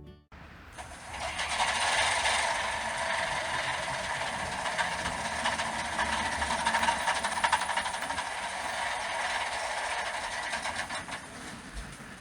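HO-scale model of a Billard A80 D railcar running: a steady hissing rush of train running noise with faint ticking, fading away near the end.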